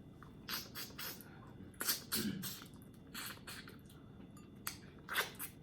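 Close-miked eating sounds: wet chewing and lip smacks coming as irregular soft clicks, with a brief closed-mouth hum about two seconds in.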